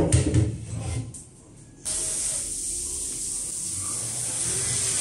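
A few knocks, then a cordless drill-driver runs steadily for about three seconds from about two seconds in, driving screws to fasten a bracket joining the countertop frame to the next unit.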